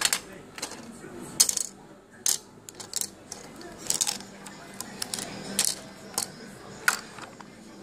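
Small hard plastic toy pieces and a plastic case clicking and tapping as they are handled and set down: a dozen or so sharp clicks at irregular intervals.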